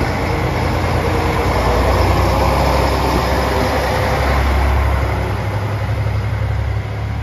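JR Shikoku 1000 series diesel railcar pulling out of the station and passing close by, its diesel engine working under load in a continuous drone that is loudest in the middle and eases slightly near the end.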